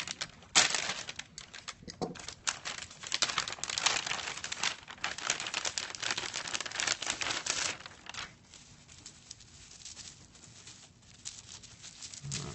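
Plastic packaging crinkling and rustling as it is handled and opened by hand. The sound is dense for about the first eight seconds, then thins to occasional faint rustles.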